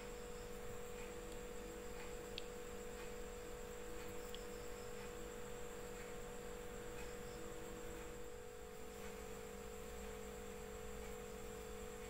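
A steady low electrical hum made of several fixed tones, with a few faint ticks over it.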